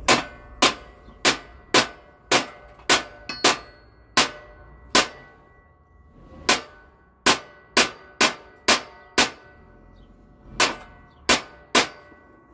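Hammer striking the steel mower deck of a John Deere S160 lawn tractor, about nineteen sharp ringing clangs in uneven runs with short pauses, bending back the deck where the cutting blade was hitting it.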